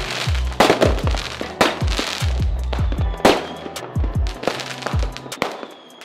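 Aerial fireworks going off in a rapid string of bangs and crackles, with low booms among them, mixed with background music.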